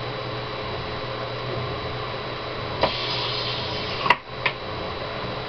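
Steady low mains hum with a short hiss about three seconds in, ending in a sharp click, and a second click half a second later.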